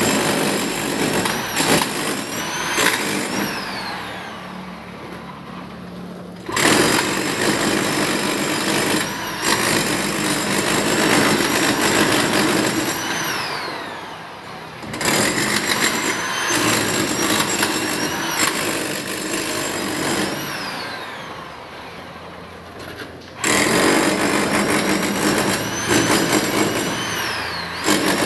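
Electric rotary hammer chiselling a groove into a brick wall for wiring, running in bouts. It starts up hard about six, fifteen and twenty-three seconds in, and each bout dies away with a falling whine.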